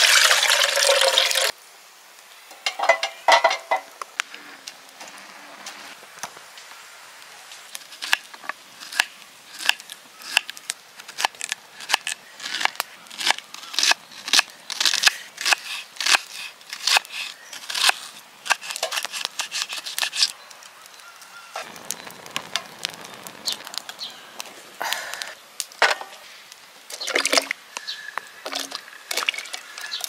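Water poured from a plastic jug into an aluminium mess tin for about a second and a half, followed by a knife cutting an onion on a wooden cutting board in quick, repeated taps.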